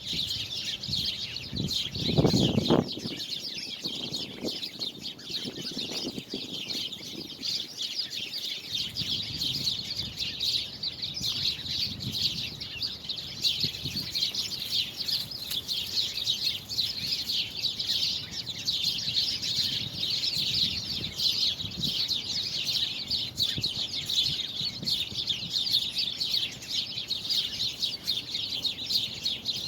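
A dense chorus of many small birds chirping and twittering without pause, with a brief low rumble about two seconds in.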